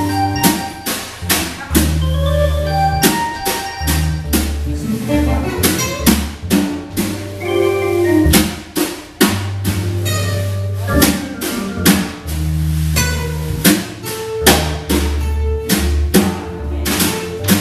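Jazz band playing upbeat dance music: a drum kit keeps a steady beat with snare hits over a walking bass line, with other instruments playing on top.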